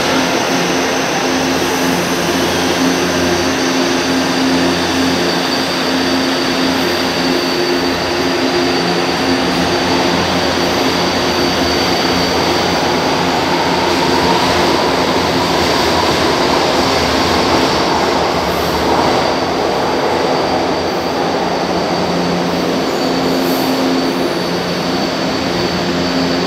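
São Paulo Metro train running along the underground station platform: a steady, loud rumble of wheels and running gear. Under it is the electric traction whine, which rises in pitch midway.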